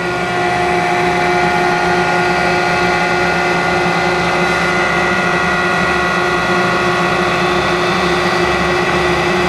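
Landis 1R universal cylindrical grinder running without cutting, its grinding wheel spinning and hydraulic pump on: a steady hum made of several even tones, with no change in speed. The machine is running smoothly.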